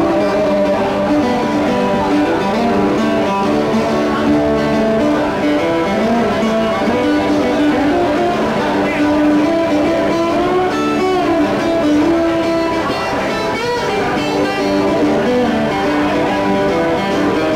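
Acoustic guitar played live, a steady run of picked and strummed notes with a melody line moving over the chords.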